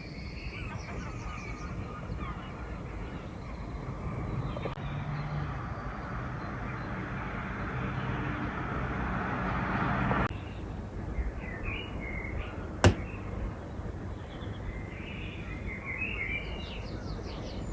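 Wild birds singing and calling in short chirping phrases over a steady low outdoor background noise. A rushing noise swells and then cuts off suddenly about ten seconds in, and a single sharp click comes a few seconds later.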